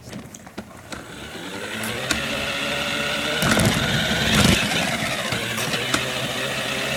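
Toy remote-control car's electric motor whining steadily as it drives, growing louder over the first few seconds. It has a stretch of rattling and knocks about halfway through.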